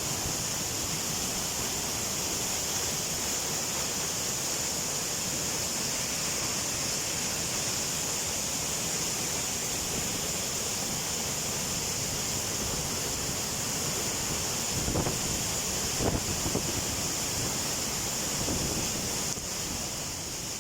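Waterfall: a steady rush of falling water with a high hiss over it. A few faint knocks come about three-quarters of the way through.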